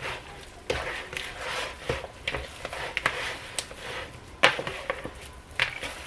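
Hands squishing and kneading raw meatloaf mix of meat, breadcrumbs and eggs in a bowl, with two sharp knocks near the end.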